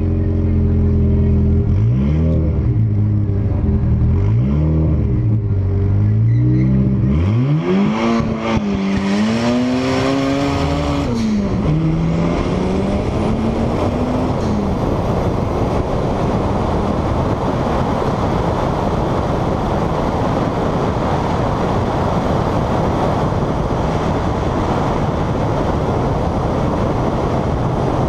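Turbocharged VW Corrado 16-valve four-cylinder blipped at the drag-strip start line, then launched at full throttle, its pitch climbing and dropping through several upshifts. From about fifteen seconds in, a steady rushing noise of wind on the roof-mounted camera at speed covers the engine.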